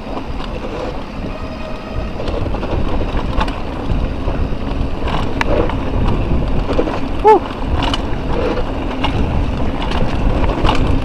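Wind rushing over an action camera's microphone while a mountain bike rattles down a rocky trail, its tyres rumbling over stones, with scattered sharp clicks and knocks from the bike. A little past the middle comes one short pitched squeal that rises and falls, the loudest moment.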